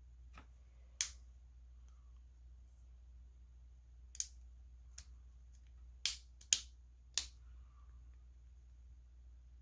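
Sharp clicks and taps of TriStar shotgun parts being handled during disassembly: about half a dozen short, irregularly spaced clicks, two in quick succession about six seconds in.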